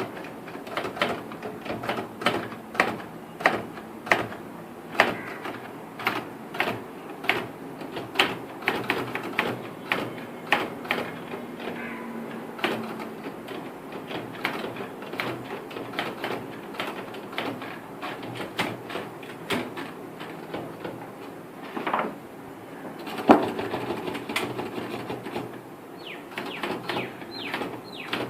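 Typewriter keys striking one at a time in an uneven rhythm of a few clacks a second, with one much louder clack about two-thirds of the way through.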